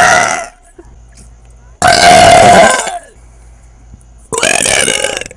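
A woman belching loudly, several times: the end of one belch, then two separate belches of about a second each, a couple of seconds apart.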